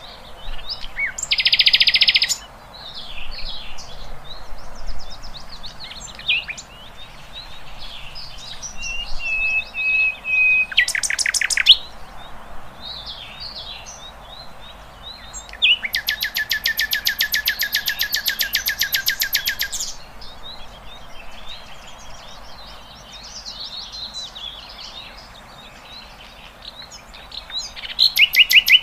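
Wild birds chirping and whistling, with several loud, rapidly pulsed trills, the longest lasting about four seconds.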